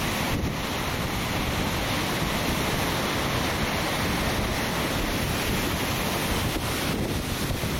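Heavy storm surf on Lake Superior, large waves breaking against a rocky shore in a steady, loud wash, with wind buffeting the microphone.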